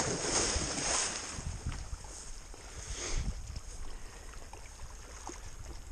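Black gundog leaping off the bank into a river on a retrieve: a loud splash as it hits the water right at the start, then about a second of churning water, a smaller splash about three seconds in, and quieter water as it swims out.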